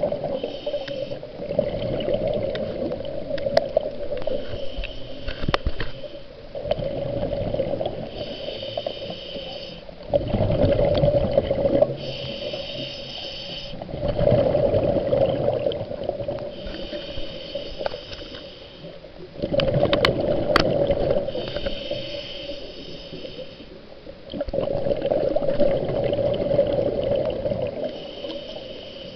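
Scuba diver breathing underwater through a regulator: a slow, even cycle of hissing inhales and bubbly, gurgling exhales, about six breaths.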